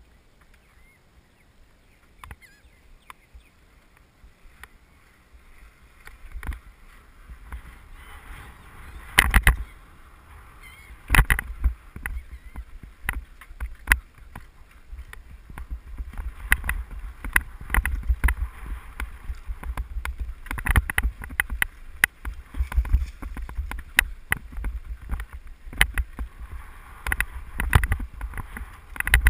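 Bicycle ride heard from a helmet-mounted camera: low wind rumble with irregular knocks and rattles as the bike jolts over a rough dirt track. Fairly quiet for the first several seconds on smooth pavement, then the jolts come thicker and louder.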